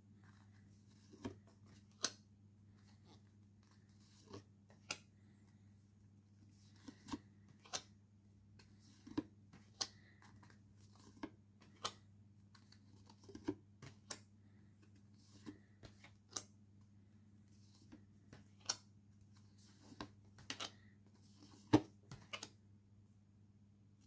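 Stiff postcards being handled and shuffled one at a time: irregular sharp clicks and light card slaps about once a second, over a low steady hum.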